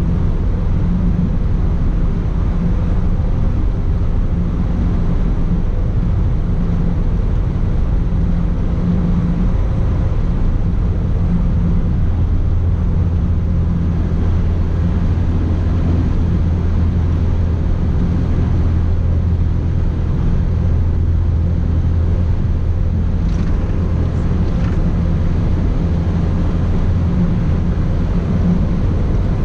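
Manitex 50128 boom truck cruising at highway speed, heard from inside the cab. The diesel engine drones steadily under a constant rush of road and tyre noise.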